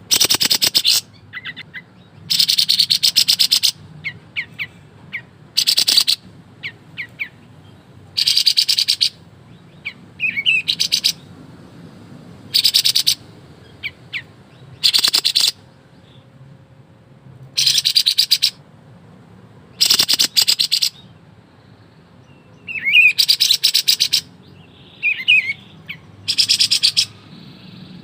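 Kapas tembak bulbul singing 'ngebren': rapid, rattling bursts about a second long, repeated every second or two. Short chirps and sweeping whistled notes come between the bursts.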